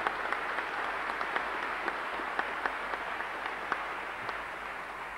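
Audience applauding: a dense patter of many hands clapping that slowly fades toward the end.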